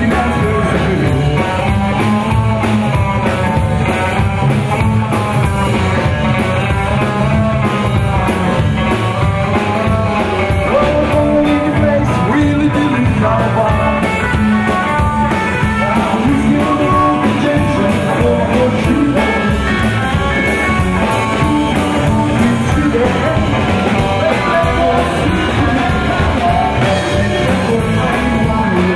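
Live rockabilly band playing: singing over electric guitar, a drum kit with snare and cymbals, and an upright double bass.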